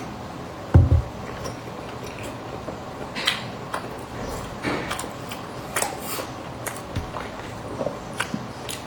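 Close-up eating sounds: biting into and chewing a pastry, with scattered sharp crackles and clicks and one low thump a little under a second in.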